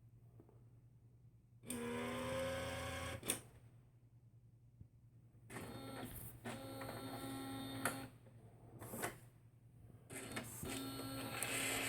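Epson P600 printer's mechanism running its head-cleaning cycle: three short motor whirs with a steady hum, each a few seconds long, separated by pauses and a few clicks.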